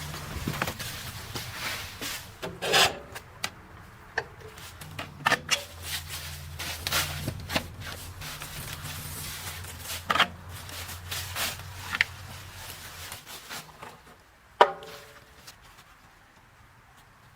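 Wood chipper with its engine running at a low hum while branches crack and knock sharply. The hum stops about thirteen seconds in, and a single loud metallic clang rings out shortly after.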